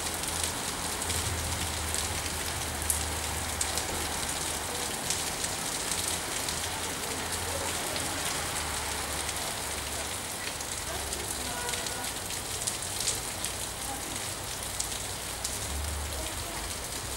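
Steady rain falling: a continuous hiss dotted with many small drop ticks, over a low rumble that comes and goes.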